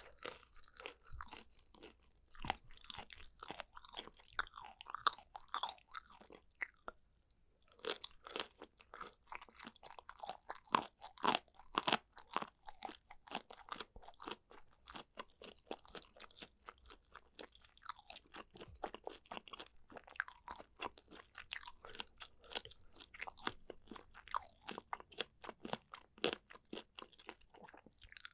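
Close-miked mukbang eating: rapid, dense crunching and sticky chewing clicks, with a short pause about a quarter of the way in.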